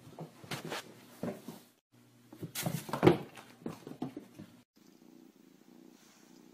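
A cat attacking makes a run of sudden scuffling noises, loudest about three seconds in. About four and a half seconds in this cuts off, and a tabby kitten starts purring softly with a steady, pulsing rumble.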